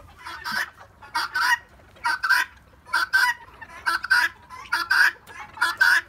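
Guinea fowl calling: a harsh two-note call, repeated about once a second.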